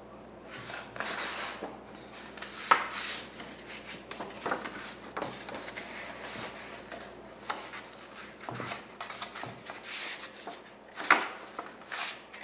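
Stiff cardstock being folded along a scored line and handled on a wooden board: paper rustling and rubbing with light taps, the sharpest about three seconds in and again near the end.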